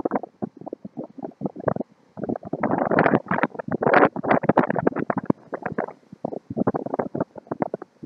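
Wind buffeting the microphone in rapid, choppy rumbling gusts, heaviest in the middle, over surf breaking on the rocky shore.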